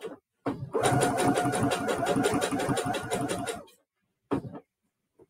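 SINGER Heavy Duty 6800C sewing machine stitching at speed, a fast even run of stitches. It stops for a moment right at the start, runs for about three seconds, then stops, followed a little later by one short sound.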